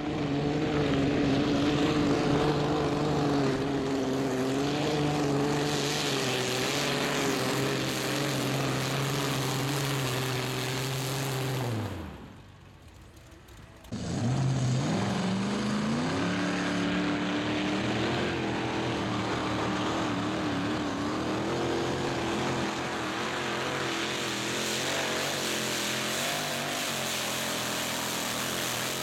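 Mini pulling tractor's engine at high revs under load, dragging the pulling sled. It holds a steady drone, then its pitch falls and it fades out about twelve seconds in. After a brief gap a second mini puller's engine rises in pitch and holds high revs under load.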